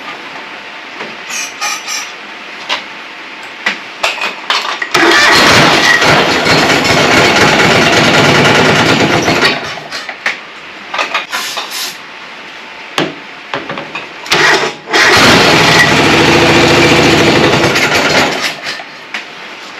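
John Deere 425 lawn tractor's engine cranked twice, about four seconds each time, without starting and running. The owner traces the no-start to the carburetor not getting fuel.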